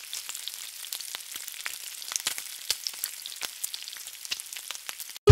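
Food frying in hot oil: a steady sizzle with many irregular crackling pops, which cuts off abruptly near the end.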